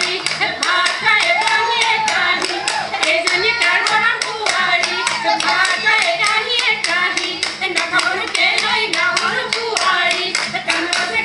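Women singing a Jeng Bihu song together, with steady rhythmic hand claps keeping the beat.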